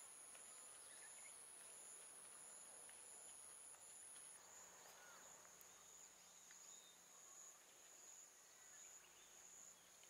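Faint outdoor ambience with a steady, high-pitched insect drone; a second, higher insect tone drops out about four seconds in.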